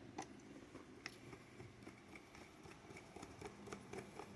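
Faint, scattered small clicks of a screwdriver driving a screw into the fan's plastic base.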